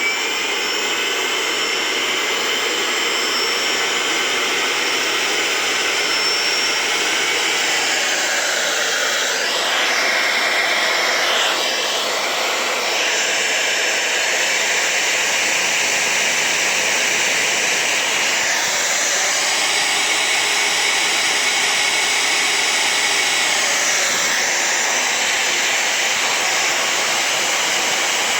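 Brushless DC air blower motor running on test after repair of the motor and its driver board: a steady whine over a rush of air, its pitch sweeping down and back up a few times as the speed changes.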